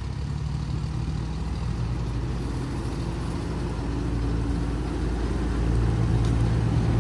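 Diesel engines of a farm tractor and a combine harvester running under load as the tractor tows the combine, stuck in mud, out onto the road on a chain. A steady low engine drone that grows louder near the end.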